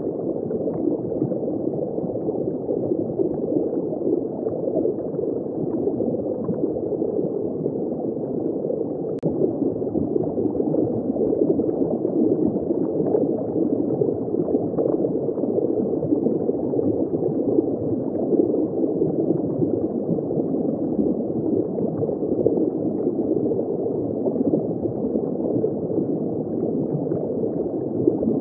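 Steady, muffled gurgling and rushing of water circulating in a saltwater reef aquarium, with no high tones, and a single faint click about nine seconds in.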